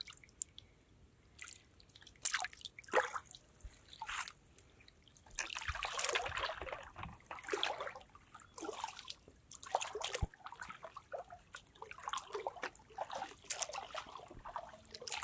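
Shallow water sloshing, trickling and splashing in irregular bursts, with a longer spell of sloshing about six seconds in.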